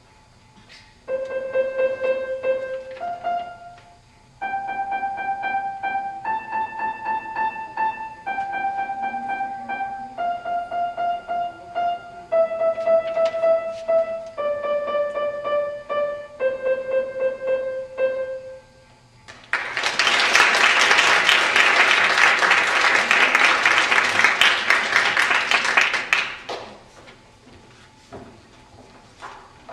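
A young pupil plays a short, simple melody on a grand piano, one sustained note at a time in slow phrases with brief pauses between them. After the last note the audience applauds for about six seconds.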